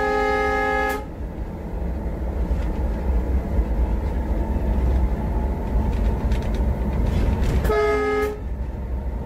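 WDG-3A diesel locomotive's air horn sounding from inside the cab while the train runs: one blast that cuts off about a second in and a shorter blast near the end. Under it runs the steady low rumble of the engine and wheels on the rails.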